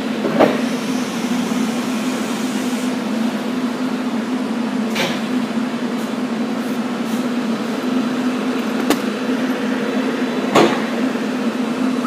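Steam piping in an underground utility vault popping sharply four times over a steady hum, during start-up of the steam system. The first pop comes about half a second in and the loudest comes near the end.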